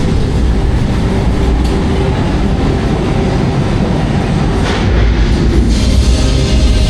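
Roller coaster train running along its steel track: a steady, loud rumble and rattle of the wheels, swelling a little about five seconds in.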